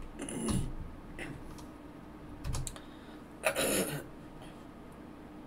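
A few keystrokes on a computer keyboard, with a short sound falling in pitch about three and a half seconds in.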